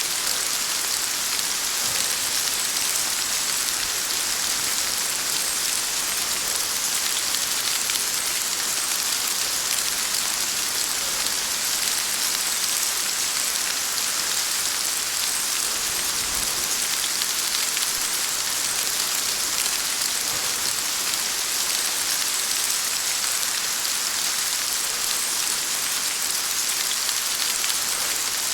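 Steady rain falling: an even, unbroken hiss, strongest in the high range, that holds the same level throughout.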